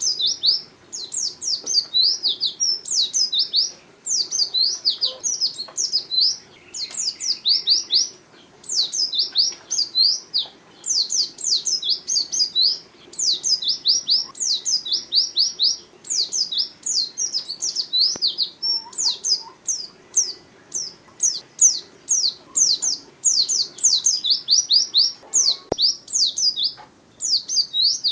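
White-eye (pleci) singing continuously: long runs of rapid, high-pitched, steeply falling chirps, in phrases broken by short pauses.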